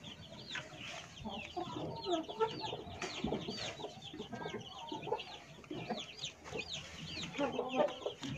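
Chickens clucking, over a constant run of high, arching peeps that repeat several times a second.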